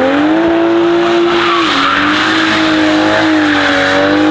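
Toyota Supra's twin-scroll turbocharged 3-litre inline-six revving up and holding at high revs, dipping slightly a little under two seconds in, while the rear tyres spin and squeal in a smoky burnout.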